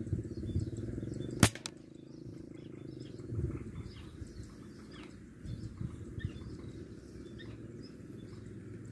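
A single sharp air rifle shot about one and a half seconds in, followed at once by a fainter click. Faint bird chirps and a low rumble lie underneath, the rumble dropping away after the shot.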